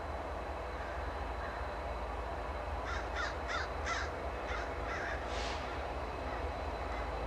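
A crow cawing about seven times in quick succession, starting about three seconds in. Under it runs the low, steady rumble of a distant freight train's diesel locomotives, an SD70M and an ES44AC.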